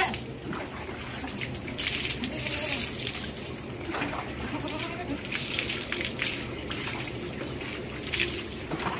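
Water poured over a goat and splashing on its coat and the wet concrete in a few spells, with faint goat bleats between them.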